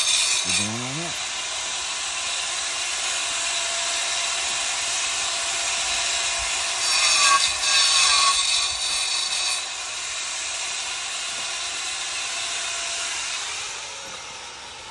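A power saw cutting stack stone, running steadily with a high grinding hiss and a faint motor whine. It gets louder for a couple of seconds around the middle, then winds down near the end.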